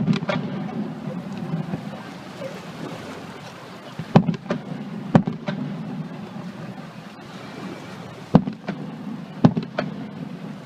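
Aerial fireworks bursting: five or six sharp bangs at uneven intervals, some trailed by crackling, over a steady low rumble.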